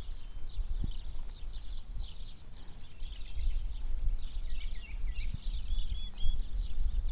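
Outdoor ambience: many small birds chirping, over an uneven low rumble. There are a few faint thuds, which fit a horse's hooves on soft arena dirt.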